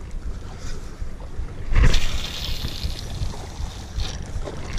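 Wind buffeting the microphone over sea washing against the rocks, with a louder whoosh about two seconds in and a shorter one near the end.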